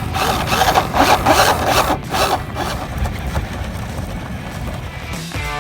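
Remote-control Lexus toy SUV driving off-road: its small electric motor and gears running, with the noise of its wheels over the ground. Music comes in near the end.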